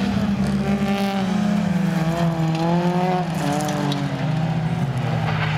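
Folkrace cars racing, several engines at once, their notes rising and falling as the cars accelerate and lift through a corner, with a drop in pitch about three seconds in.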